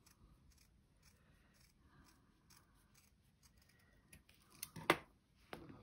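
Small scissors snipping through felt, cutting out a tiny door shape freehand: a run of quiet snips, with a few sharper cuts about four to five seconds in.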